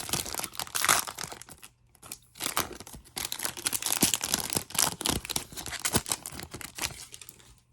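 Basketball trading card pack wrapper being torn open and crinkled: a run of crackling rips and rustles, with a couple of brief pauses.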